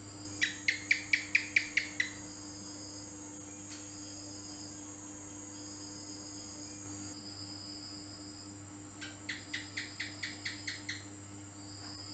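House gecko (cicak) calling: two runs of about eight quick chirps, about five a second, the first near the start and a softer run about nine seconds in.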